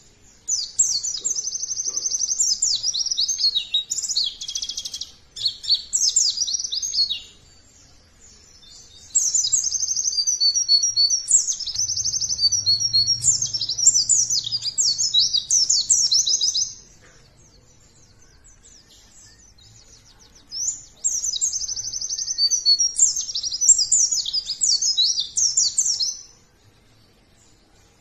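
White-eye (pleci) singing a rapid, high, twittering song in three long phrases of about six to eight seconds each, with short pauses between: a continuous 'gacor' song used as a lure to set other pleci singing.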